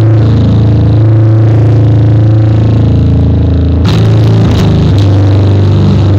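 Bass guitar played through a bass overdrive pedal: a low distorted note ringing on with a buzzing edge, picked again a couple of times about two thirds of the way through.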